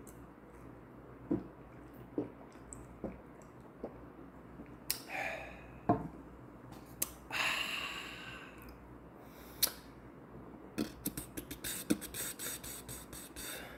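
A person drinking from a bottle: soft gulps about a second apart, then a sharp knock, a breathy exhale, and near the end a quick run of light clicks and taps.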